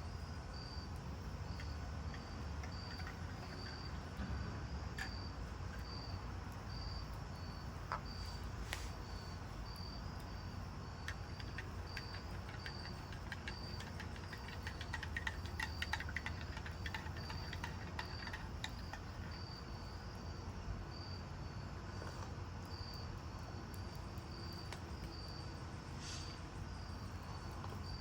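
A cricket chirping in steady, evenly spaced high-pitched pulses, over a low background rumble, with a cluster of faint clicks about halfway through.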